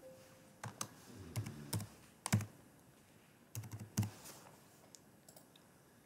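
Computer keyboard keys being typed in a short, irregular run of keystrokes as a six-digit verification code is entered, over roughly the first four seconds.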